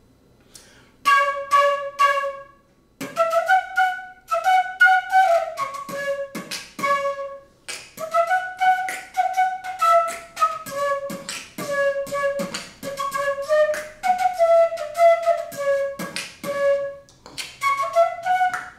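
Fluteboxing: a bamboo transverse flute playing a melody of held notes while the player beatboxes through it, adding sharp percussive beats between and under the notes. It starts about a second in.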